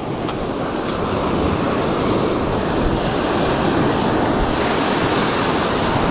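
Small surf waves breaking and washing up a sandy beach, with wind rumbling on the microphone. A single sharp click sounds just after the start.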